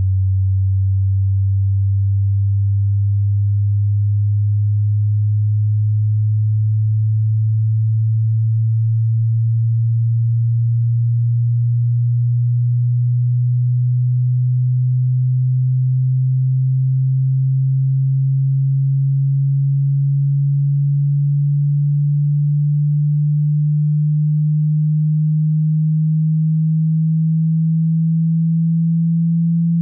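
Hearing-test sine tone: a single low pure tone slowly gliding upward in pitch, as part of a frequency sweep.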